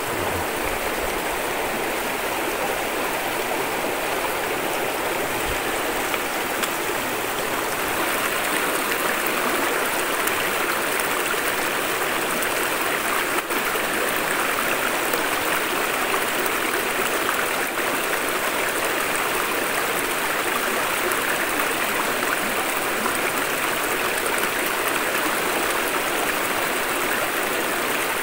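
Shallow rocky river running steadily, water rushing and babbling over stones. It grows slightly louder about a quarter of the way in, and there is a single short click about halfway through.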